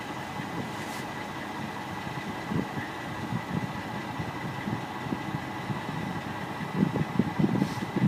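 An engine idling steadily, with a few louder irregular low thumps near the end.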